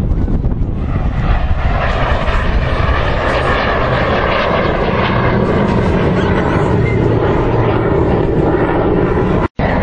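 Loud, steady roar of an aircraft's engines as it flies past, with the sound cutting out for an instant near the end.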